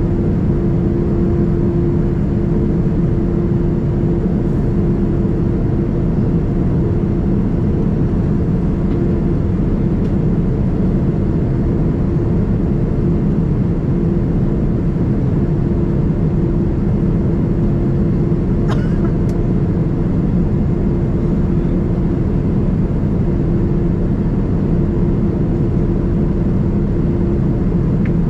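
Steady engine drone of a Boeing 787-9 heard from inside the passenger cabin: a constant low roar with a steady hum in it, and one faint, short click about two-thirds of the way through.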